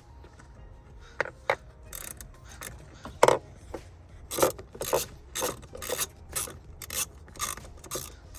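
Hand tool tightening the band clamp that holds a cone air filter onto its intake pipe: two sharp clicks, then a steady run of short strokes about two a second.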